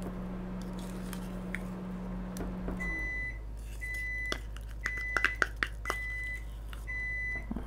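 Microwave oven running with a low hum that stops about three seconds in, followed by short beeps about once a second, signalling that the heating cycle is done. Light clicks and scrapes of a knife against a plastic measuring cup sound alongside.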